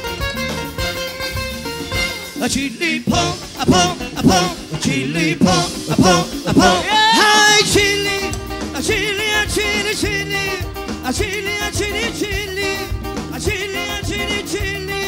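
Live Persian pop band playing guitars and drum kit, with a male voice singing a wavering melody from about seven seconds in.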